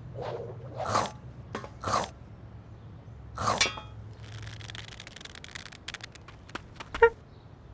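Cartoon sound effects: a few sharp clinks and knocks, then a scraping, rustling stretch, and a short bright metallic ding near the end.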